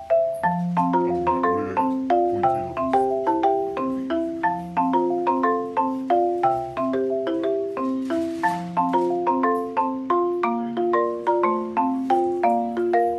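Background music played on a marimba-like mallet instrument: a steady run of struck, quickly fading notes, about four a second.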